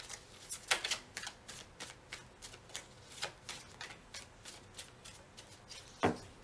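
A deck of tarot cards being shuffled hand to hand, with soft crisp card flicks about three a second. One louder knock comes near the end.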